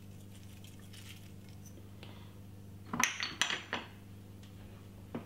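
Dried chilli flakes shaken faintly onto a salad in a glass dish, then a quick cluster of sharp clinks and knocks of kitchenware about three seconds in, with one more click near the end. A steady low hum runs underneath.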